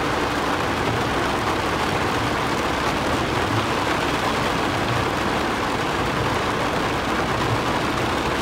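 Heavy rain drumming steadily on a car's roof and windshield, heard from inside the cabin, with a faint low rumble of the car beneath.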